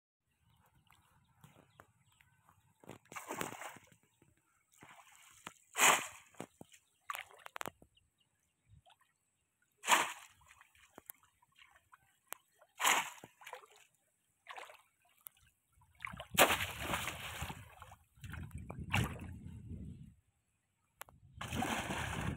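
Shallow water splashing and sloshing as a conical bamboo fish trap is thrust down into a flooded paddy, in separate splashes a few seconds apart, then longer churning near the end.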